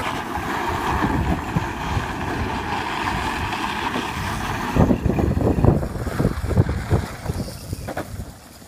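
Modified Power Wheels ride-on car's electric motors whining steadily while its plastic wheels spin and scrub on loose gravel in a skid. Just under five seconds in this stops, and gusts of wind buffet the microphone.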